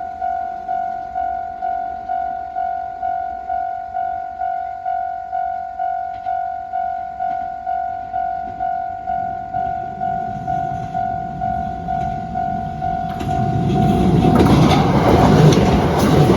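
Japanese level-crossing warning bell ringing, a repeated electronic ding about one and a half times a second. About ten seconds in, a diesel limited express train approaches and passes over the crossing. Its rumble builds until it drowns out the bell.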